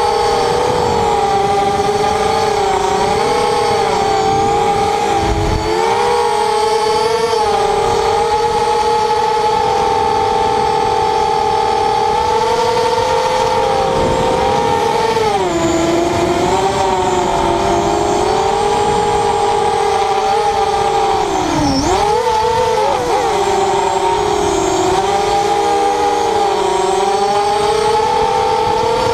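ZMR 250 FPV quadcopter's brushless motors (Tiger Motor 2206 2000 kV on 6x4.5 props) whining steadily in flight, the pitch rising and falling as the throttle changes. About three quarters of the way through, the pitch drops sharply and climbs straight back.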